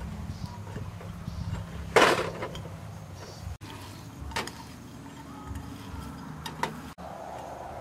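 Beef cubes being mixed by hand in a glass bowl, with one loud clink or clatter of the bowl about two seconds in and a couple of fainter clinks later, over a steady low hum.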